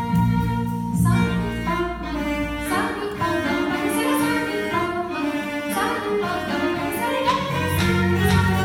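Live chamber ensemble music with cello and violin among the instruments: layered sustained and moving notes with frequent note attacks. The low bass notes drop away about a second in and return near the end.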